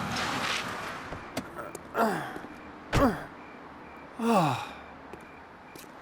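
A cartoon character's voice letting out three sighs, each falling in pitch, about a second apart, the sound of someone tired out.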